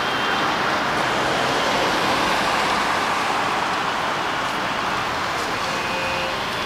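Steady street noise with road traffic, an even hiss with no single event standing out. Faint brief high tones sound near the start and again near the end.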